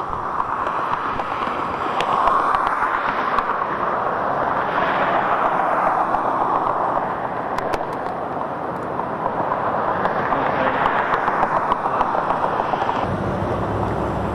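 Tyre noise of vehicles passing on a highway, swelling and fading twice, with a few sharp ticks. A low engine hum comes in near the end.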